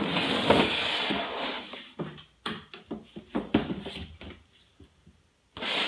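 Cardboard box and plastic packaging being handled and opened: rustling for about two seconds, then a string of separate clicks and knocks as parts are taken out, fading to quiet near the end.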